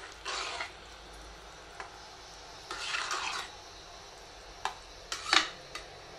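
A spoon stirs thick curd rice in an aluminium pressure cooker pot, mixing the curd through the rice. There are two short spells of wet mixing, then a few sharp clicks of the spoon against the pot, the loudest about five seconds in.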